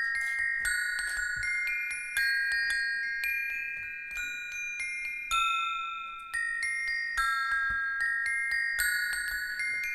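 A row of metal bars struck with two thin rods, playing a slow melody in clear, ringing, bell-like notes, often two at a time, about two to three strikes a second.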